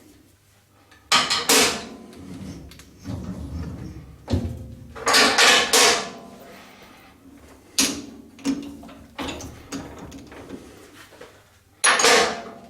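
Clanks and scrapes of metal parts being handled at a small lathe: a few separate sharp knocks and rattles with quieter handling noise between.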